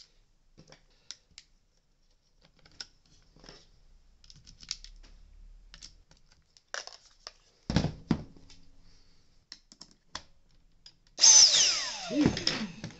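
Small clicks and knocks of a screwdriver and plastic parts being handled. About 11 seconds in, the Dyson V8's motor starts abruptly and loud, then winds down with a steeply falling whine: a short run on the newly replaced trigger switch.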